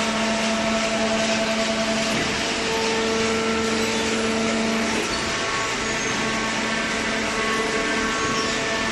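Hydraulic paper baler running: a steady machine hum with a noisy rush, its hum tones shifting slightly about two and five seconds in.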